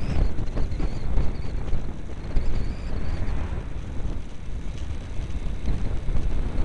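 Wind buffeting the microphone of a camera on a bicycle riding a road: an uneven low rumble.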